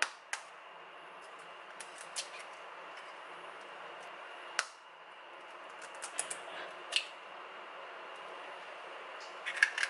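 Eggs being cracked with a steel spoon over a steel bowl: scattered sharp taps and clicks of metal on eggshell and bowl rim, the loudest about halfway through, over a steady low hiss.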